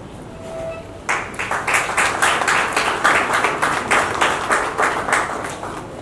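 Audience applauding. It starts abruptly about a second in and dies away near the end.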